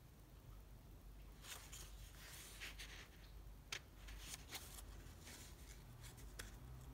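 Faint rustling and swishing of thick handmade-paper sketchbook pages being handled and turned, with a short sharp tick a little past halfway.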